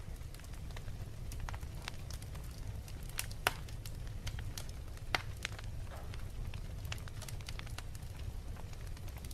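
Log fire in a fireplace crackling over a low, steady rumble, with scattered sharp pops; the loudest come about three and a half and five seconds in.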